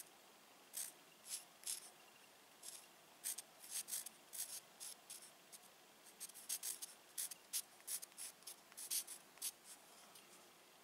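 Pencil writing on a bare wall: a quiet, irregular run of short scratching strokes as the letters are drawn.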